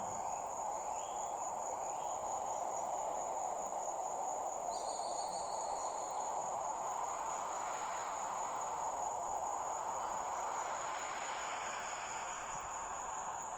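Crickets trilling steadily, one constant high-pitched trill, over an even background hiss; a brief higher chirp sounds about five seconds in.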